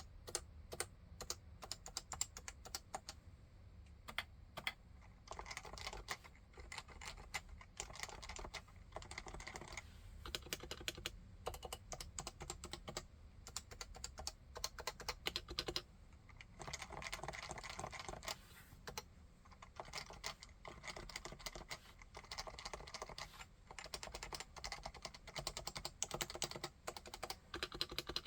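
Typing on a Leopold FC660C keyboard with Topre electrostatic capacitive switches: runs of rapid keystrokes broken by short pauses.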